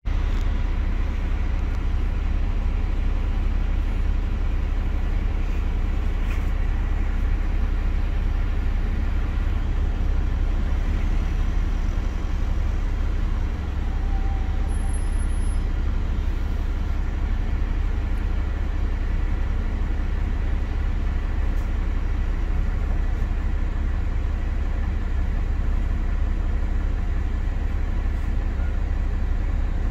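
Wright StreetLite single-deck bus heard from inside the passenger saloon on the move: a steady low engine and road rumble.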